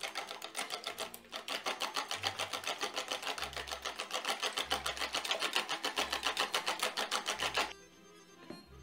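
Wire whisk beating two raw eggs in a mixing bowl: rapid, even clicking strokes of the wires against the bowl, stopping near the end.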